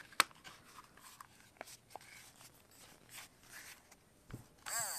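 Small clicks and rubbing of the plastic screwdriver housing and its parts being handled and pressed together, with one sharp click just after the start. A louder, higher sound with repeating rising-and-falling tones begins near the end.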